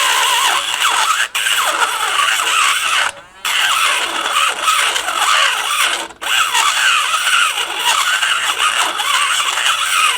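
Dremel rotary tool with a solid double-cut carbide burr grinding out the hole in a mild steel flange: a loud, high squealing whine that wavers in pitch as the burr bites, briefly cutting out three times as the tool is lifted.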